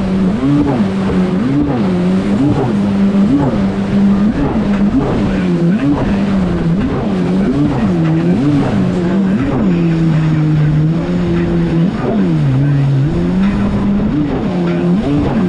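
2021 Kawasaki STX-160 jet ski's four-stroke engine running at speed, its pitch surging up and down about once a second as the craft rides over choppy water, over a steady rush of wind and spray.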